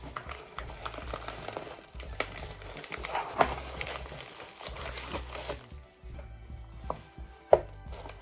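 Packing material and a cardboard shipping box crinkling and rustling as they are opened by hand, with a few sharp clicks. The crinkling stops about two-thirds of the way through, leaving background music and one sharp tap near the end.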